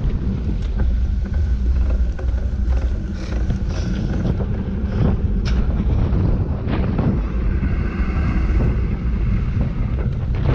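Heavy wind buffeting on a handlebar-mounted action camera of a racing motorbike, with the bike's engine running underneath. A higher engine note shows through for a couple of seconds near the end.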